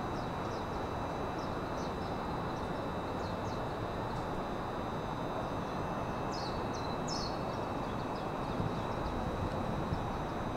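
Small birds chirping in short, quick falling calls, most of them in the middle stretch, over a steady hiss and a faint high steady whine.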